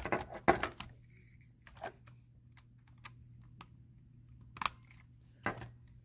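Plastic LEGO Technic parts clicking and knocking as they are handled and pressed into place on an EV3 robot: a quick run of clicks in the first second, then a few single clicks.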